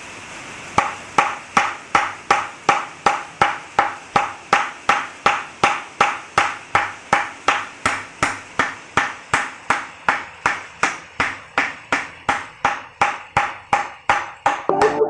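Cricket bat being knocked in: its blade struck with a steady run of sharp, evenly spaced knocks, about three a second.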